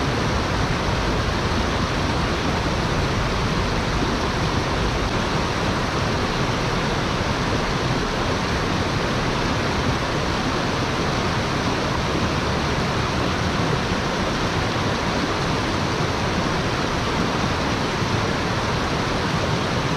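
Shallow rocky stream rushing over stones and a small cascade: a steady, unbroken wash of water.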